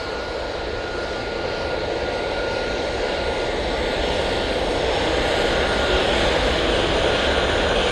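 Turkish Airlines Airbus A320neo's jet engines on approach to land: a steady rush of engine noise with a thin steady whine, growing slowly louder as the airliner comes in.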